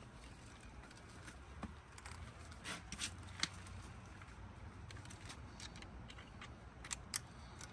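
Scattered faint clicks and scrapes of hand work on an air-conditioner condenser's capacitor and wiring, over a low steady background rumble.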